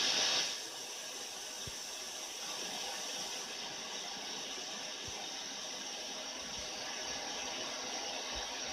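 Steady static hiss, like an untuned analogue TV, laid over the closing title card. It is louder for the first half second, then settles lower and holds steady until it cuts off abruptly near the end.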